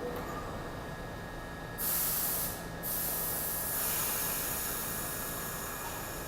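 New York City subway train's air brakes hissing at the platform: a short sharp blast of air about two seconds in, then a longer hiss that slowly tapers off.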